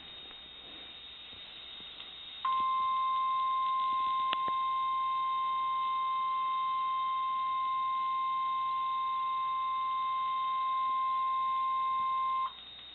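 NOAA Weather Radio warning alarm tone: a single steady 1050 Hz tone held for about ten seconds, starting a couple of seconds in after faint stream hiss and cutting off abruptly. It signals that an urgent warning message, here a severe thunderstorm warning, follows.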